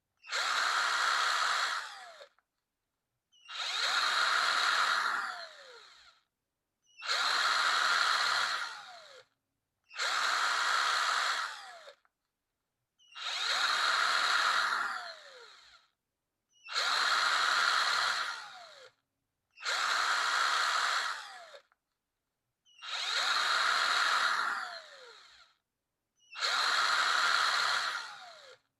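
Electric power drill run in repeated bursts of two to three seconds, nine in all with short silences between; at each trigger release the motor's whine falls in pitch as it spins down.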